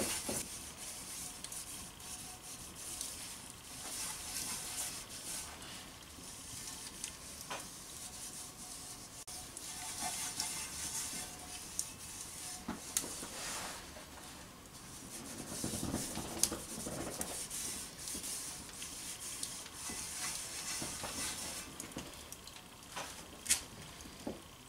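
A rag rubbing oil over a hot stamped-steel fry pan, with a soft hiss of sizzling oil that swells and fades, while a seasoning coat goes on. A few sharp crackles stand out, the loudest near the end.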